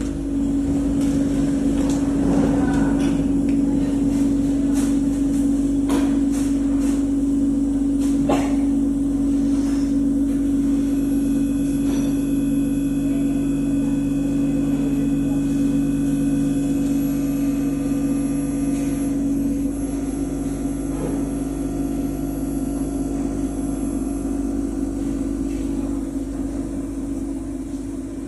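ZD-X20S automatic CNC end mill grinder running: a steady motor hum with scattered clicks and knocks, easing off slightly near the end.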